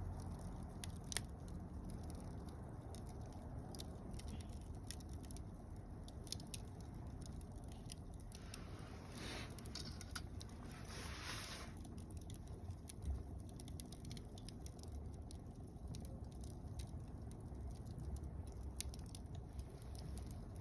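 Campfire of mixed softwood and hardwood logs burning, crackling with scattered sharp pops over a low rush of flame. A hissing swell rises for a few seconds near the middle.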